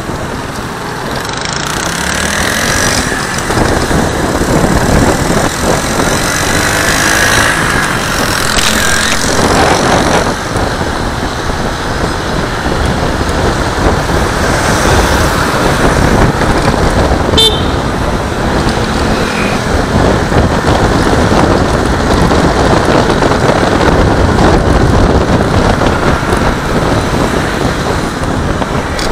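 Steady riding noise from a Honda Click 150i scooter moving through traffic: rushing wind and road noise with the engine underneath, and a brief sharp tick about seventeen seconds in.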